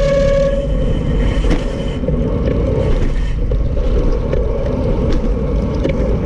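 Heavy wind buffeting on a handlebar-mounted camera's microphone, with tyres hissing on a wet road, as a road bike rides through rain. A high squeal fades out about half a second in.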